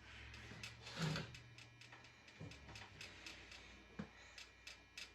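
Quiet handling noises from waxing a table saw top: a short rub about a second in and a couple of soft low knocks, over a steady quick ticking of about three ticks a second.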